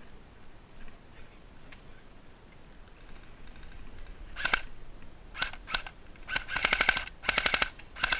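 Airsoft electric guns firing short full-auto bursts: a rapid rattle of evenly spaced clicking shots, each burst under half a second. The bursts start about four seconds in and come more and more closely together toward the end.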